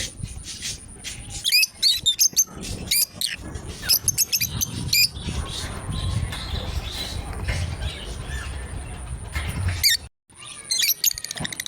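Lovebirds chirping: quick runs of short, sharp, high-pitched chirps, busiest in the first half and again near the end, over a faint steady high whine. The sound drops out for a moment about ten seconds in.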